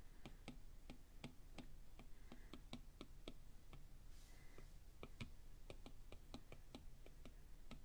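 Apple Pencil tip tapping on the iPad's glass screen during short smudging strokes: faint, sharp clicks, about three a second, slightly uneven.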